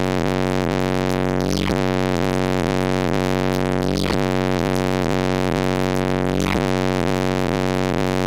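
Two Sundown SA-15 15-inch car subwoofers in a low-tuned enclosure play a single low bass tone, held steady inside the car cabin. The tone sounds harsh and buzzy, with many overtones, and wavers briefly about every two and a half seconds.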